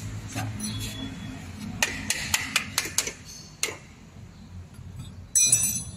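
Metal wrenches clicking and tapping against metal parts: about seven sharp clicks over a couple of seconds, then near the end a brief, louder metallic clatter with a ringing tone.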